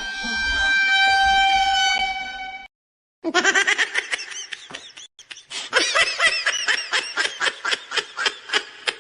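Meme sound effects: a loud, held horn-like tone for about two and a half seconds. After a short gap comes a rapid run of short pitched squeaks, about five a second, with a brief break partway through.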